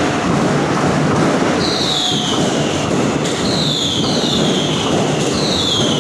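A dense fireworks barrage with continuous crackling and popping. About four high whistles falling in pitch cut through it, one every second or so.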